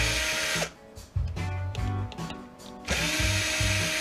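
Cordless drill-driver running in two short bursts, backing screws out of a VCR's metal tape-deck chassis: a brief whir at the start, then a longer one from about three seconds in.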